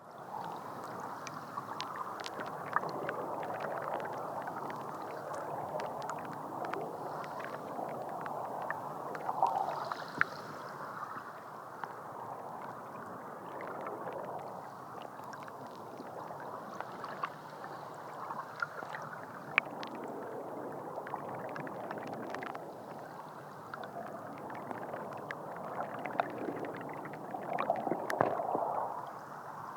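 Water gurgling and lapping, with scattered sharp clicks and knocks.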